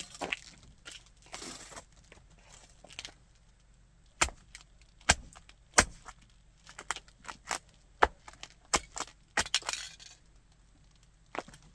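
Model car being crushed under a shoe: a string of sharp cracks and snaps as its parts break, with crackly crunching near the start and again near the end.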